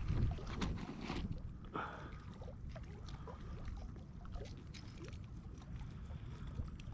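Steady low wind rumble on the microphone, with faint scattered clicks and rustles, a few sharper ones in the first two seconds.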